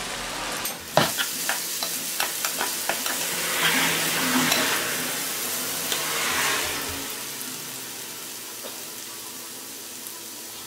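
Sliced red onions sizzling in oil in a frying pan, being browned for braised onions. For the first few seconds a wooden spoon clicks and scrapes against the pan as the onions are stirred; after that there is only a quieter steady sizzle.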